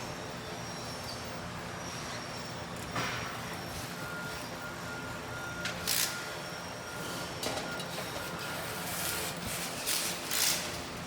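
Bicycle assembly-line machinery running with a steady hum and a thin held whine through the middle, broken by several short hisses.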